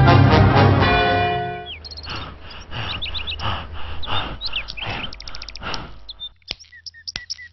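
Brass theme music ends in the first two seconds, then birds chirp and trill against quiet outdoor ambience. Under the birdsong comes a soft rhythmic breathing sound about twice a second: men panting after a run. It dies away about six seconds in.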